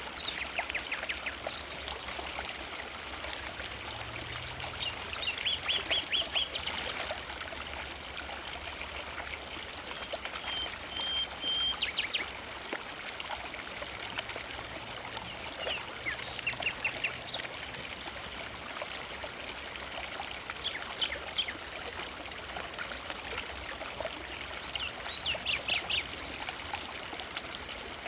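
A forest river flowing with a steady rush of water. Over it a bird calls every few seconds in short, rapid trills of high notes, about six times.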